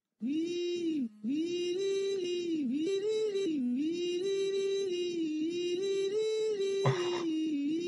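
A single voice singing a wordless tune in long held notes that dip and rise in pitch, with a short gap about a second in. A brief burst of noise cuts across it about seven seconds in.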